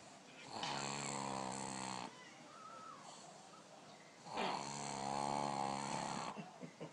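A sleeping pug snoring: two long, buzzing snores about four seconds apart, with quieter breathing between.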